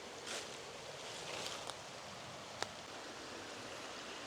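Steady rush of flowing water, a waterfall or creek in the canyon, with one small click about two and a half seconds in.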